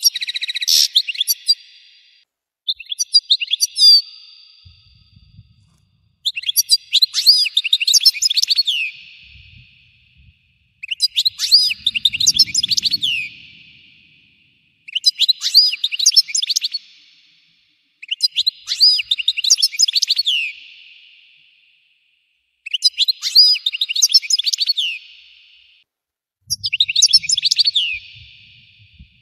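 European goldfinch singing its full, intense song in repeated phrases of rapid twittering and quick falling notes, each phrase about three seconds long with a short pause between, about eight times over.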